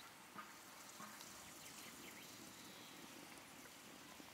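Near silence: a quiet outdoor background with a few faint, short chirps.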